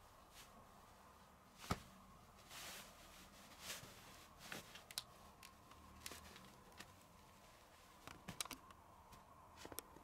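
Faint rustling of a fleece-covered futon and scattered sharp clicks as a cat paws and tugs at it with its claws, over a faint steady high hum.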